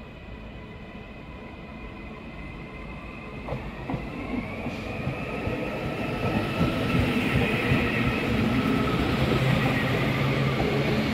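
Northern Class 331 electric multiple unit coming in along the platform, growing steadily louder as it nears. A high whine sits over the rumble of the wheels on the rails.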